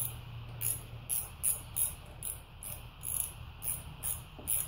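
Socket ratchet wrench clicking in short bursts, about two to three strokes a second, as it backs out the ignition coil's 10 mm bolt on the mower's engine.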